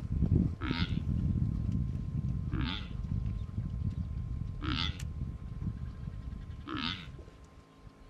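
A short animal call repeated about every two seconds, four times, over a low, uneven noise that is strongest in the first couple of seconds and fades near the end.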